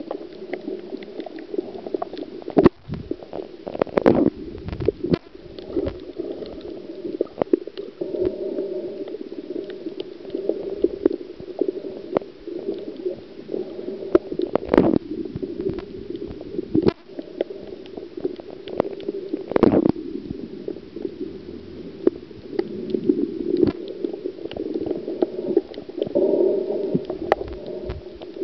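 Muffled underwater ambience picked up by a camera in its waterproof housing while diving over a reef: a steady low rushing hum with scattered clicks and knocks throughout.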